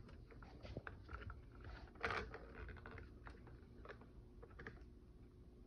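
Faint scattered clicks and light knocks of a plastic astronaut galaxy projector being handled on a wooden surface, with a slightly louder short rustle about two seconds in.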